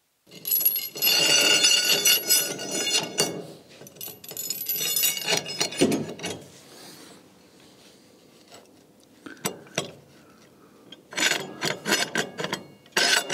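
Steel threaded rods scraping and rattling against steel brackets and a timber beam, with a metallic ringing, in two long bouts. After that come scattered clinks and knocks of metal on metal and wood.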